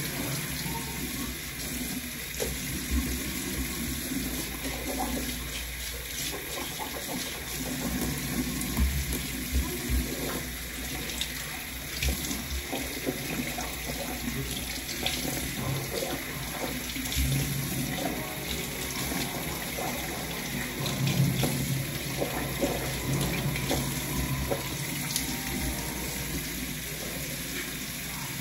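Bathroom sink tap running with water splashing into the basin, broken by occasional small knocks from things handled at the sink.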